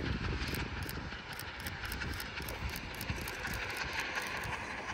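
Steam-hauled train running with a quick, even, rhythmic clatter.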